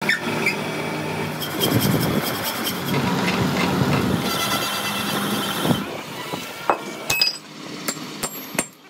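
Metal lathe running and turning a steel axle shaft, the cutting tool peeling off steel chips, then several separate sharp hammer blows on the steel axle shaft near the end.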